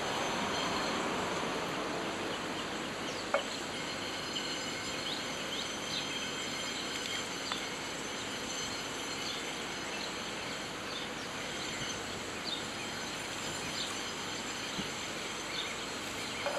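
Steady background hiss of room noise, with a few faint, light ticks scattered through it.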